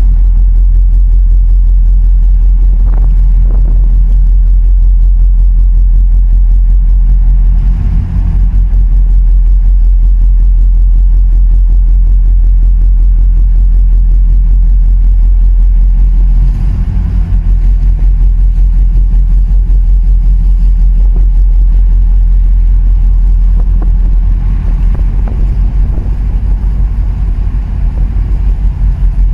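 Loud, steady low rumble of a boat engine heard from on the water, with wind buffeting the microphone. The rumble dips briefly twice.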